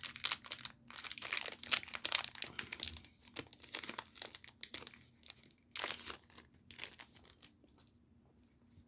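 Crinkling and rustling from handling a Magic: The Gathering booster pack and its foil wrapper, in irregular bursts that die down near the end.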